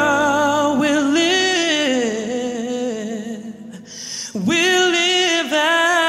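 Song with a singer holding long, wavering notes, briefly dropping away a little under four seconds in before the held notes return.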